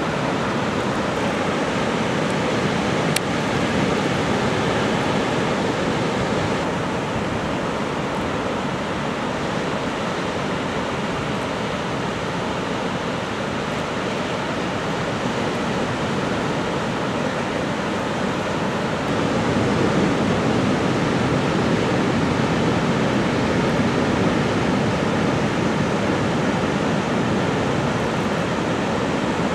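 Ocean waves breaking and washing in: a steady rush of surf, shifting slightly in level about seven seconds in and again near twenty seconds, with one faint click about three seconds in.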